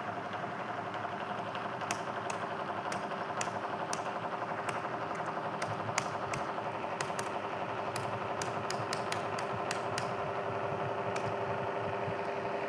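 Laptop keyboard keys being typed at an irregular pace while entering a login password, over a steady background hum.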